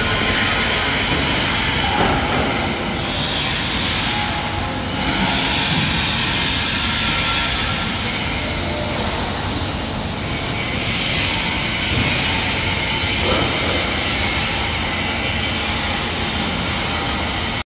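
Steady factory-hall background noise: a constant rushing drone with no rhythm, swelling in hiss now and then.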